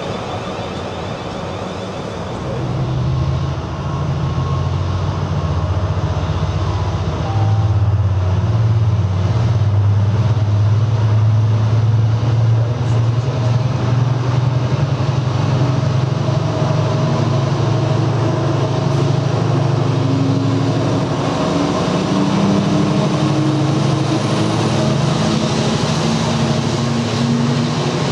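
Diesel engine of a Freightliner Class 70 locomotive, a GE PowerHaul V16, running with a loud low drone as it approaches and passes at slow speed with a container train. It swells about three seconds in, and its note rises a little near the end.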